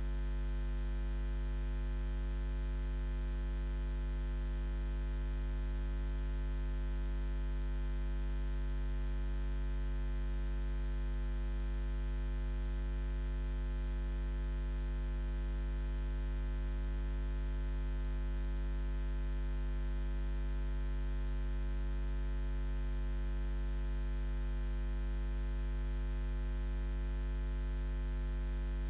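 Steady electrical mains hum: a low, unchanging drone with a stack of higher overtones, at constant loudness.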